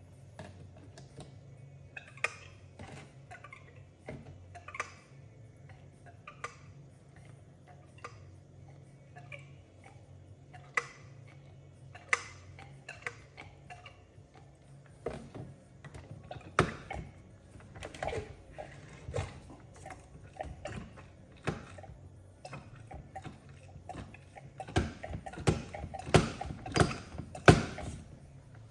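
Irregular clicks and knocks of a motorcycle fork and tools being handled while its fork oil is drained, with a quicker run of louder knocks near the end. A low steady hum underneath stops about halfway through.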